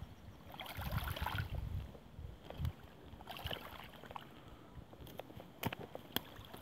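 Small waves lapping faintly against the stones and sticks at the water's edge, with two sharp clicks near the end.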